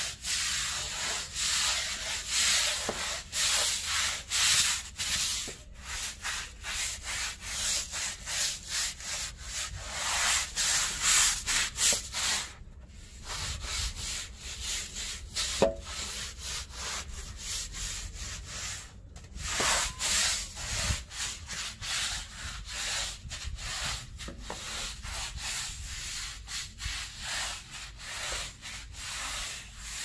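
Stiff-bristled deck brush scrubbing wet, soapy concrete in quick repeated strokes, with a couple of brief pauses.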